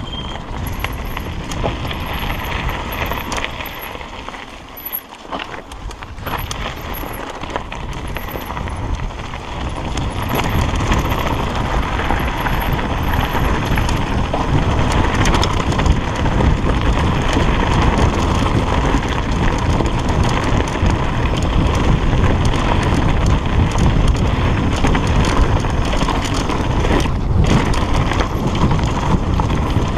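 Mountain bike descending a dirt forest singletrack: tyres rolling over the dirt, the bike rattling over bumps, and rushing air over the microphone. It grows louder about a third of the way in and stays loud.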